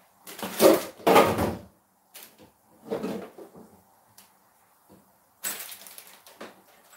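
Kitchen cupboards and drawers being opened, rummaged through and shut, a series of knocks and rattles, the loudest about a second in.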